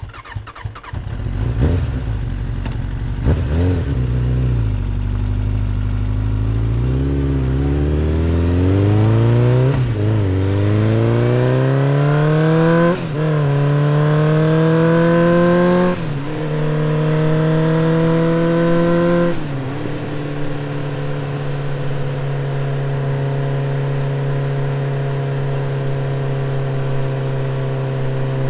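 Motorcycle engine revving, then accelerating through the gears: its pitch climbs and drops sharply at each upshift, several times about every three seconds, before settling into a steady cruise near the end.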